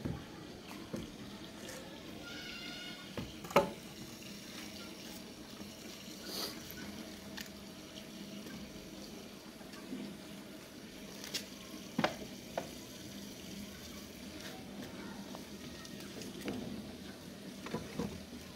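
Occasional knocks and clatters of old wooden planks and a wooden pole being handled and leaned against a wall, the sharpest about three and a half seconds in. A steady background hiss runs underneath.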